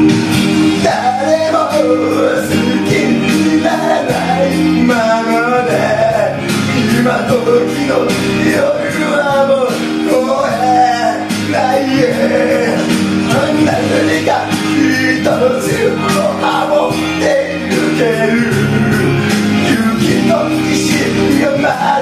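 A man singing a Japanese pop ballad into a karaoke microphone over a loud backing track with steady chords. His voice comes in about a second in, after a short instrumental moment.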